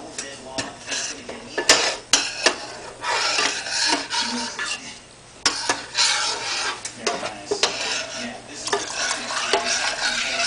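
A metal spoon stirring and scraping around the inside of a stainless steel saucepan, with sharp clinks against the pan in the first few seconds and then stretches of steady scraping.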